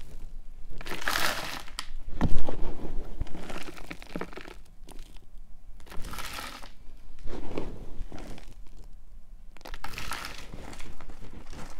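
Hands working potting mix of orchid bark and all-purpose soil into a terracotta pot around a plastic moss pole. Irregular rustling and crunching come in several spells, with one sharp knock about two seconds in.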